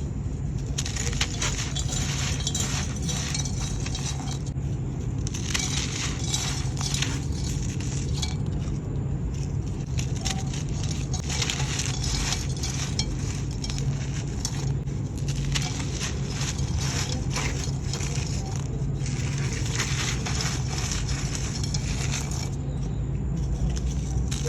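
Dry, gritty sand-cement crumbling and crunching: bursts of fine crackling a few seconds long, with short lulls between, over a steady low hum.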